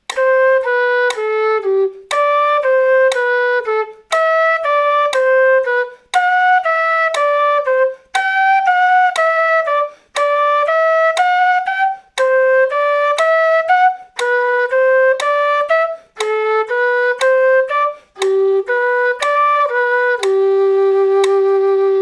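Quena (Andean notched flute) playing a scale exercise in short tongued notes, two to each click of a metronome at 60 BPM, in groups of about four notes stepping up and down with brief breaths between them. It ends on a long held low note.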